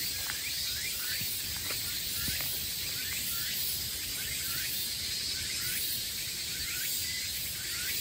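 Forest ambience: a steady high-pitched insect chorus, with a short chirping call repeating about twice a second.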